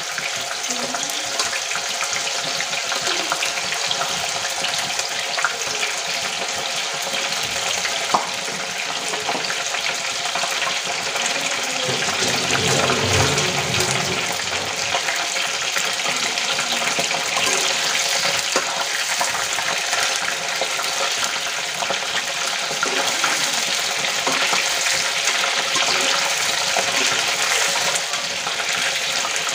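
Soya chunks deep-frying in hot oil in a kadai: a steady sizzle and bubbling with small crackles throughout. Near the end a slotted spoon stirs the pieces in the oil.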